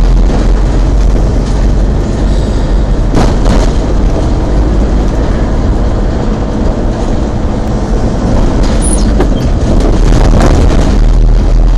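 Car driving through town, heard from inside the cabin: steady engine and road rumble, with brief louder surges about three seconds in and again near ten seconds.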